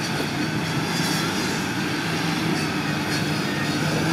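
An off-road 4x4's engine running steadily, a continuous drone under an even haze of noise.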